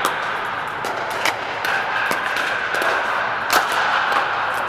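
Pickleball paddles hitting plastic balls on several courts: sharp, irregular echoing pops, the loudest about three and a half seconds in, over a steady background din.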